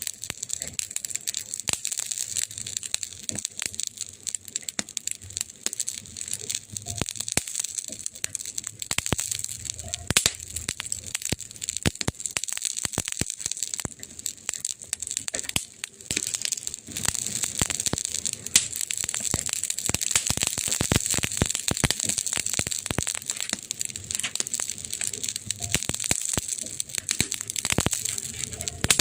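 Wood fire in a fireplace crackling, with many sharp irregular pops and snaps over a steady hiss.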